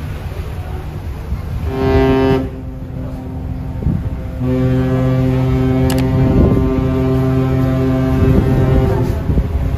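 Large ship's horn sounding: a short blast about two seconds in, then after a pause a long blast of about four and a half seconds, over a steady low rumble.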